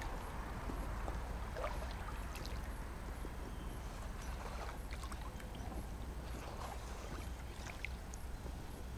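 Small waves lapping gently at a stony shoreline, a steady watery wash with a low rumble underneath and a few faint scattered clicks.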